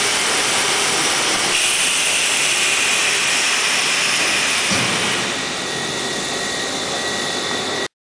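Loud steady hiss and whir of foam block mould machinery while the mould's box walls are raised. The tone shifts about a second and a half in and again about five seconds in, then the sound cuts off suddenly near the end.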